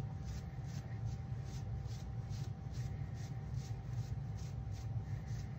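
Baby wipe rubbed back and forth over a waxed, painted wooden board, a quick scrubbing at about four strokes a second as antique wax is wiped off to distress the finish. A steady low hum runs underneath.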